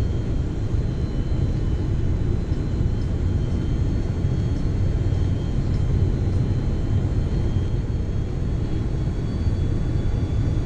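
Airbus A330-300 cabin noise on descent towards landing: a steady deep rumble of engines and airflow with a faint, steady high whine.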